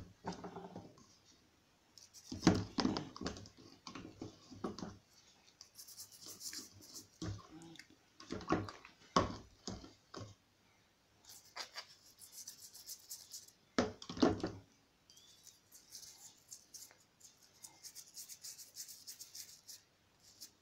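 Toothbrush bristles scrubbing a small hard black piece, in stretches of faint scratchy rubbing, with a few louder knocks and clatters from handling the piece and the plastic cup.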